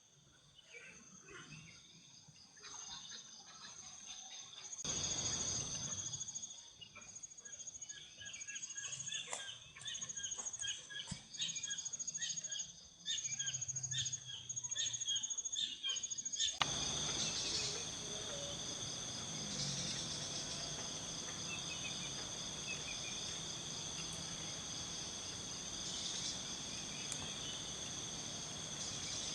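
Night insect chorus: a steady, high, multi-toned chirring. Scattered clicks and rustles fall in the first half, and the background hiss changes abruptly just past halfway.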